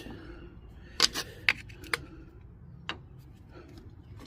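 Metal pry tool clicking and scraping against a rear brake caliper as it levers the caliper piston back: five sharp clicks between about one and three seconds in.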